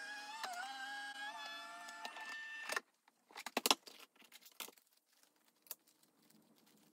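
Die-cutting machine feeding the chrome precision plate sandwich through its rollers: a steady whine that stops sharply about three seconds in. Scattered clicks and taps follow as the plates are handled.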